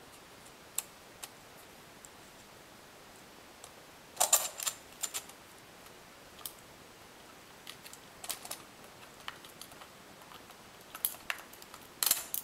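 Light clicks and knocks of hard parts being handled: aluminium quadcopter booms being fitted over the screws of the chassis plate. The clicks come singly and in quick clusters, with a louder run about four seconds in and another near the end.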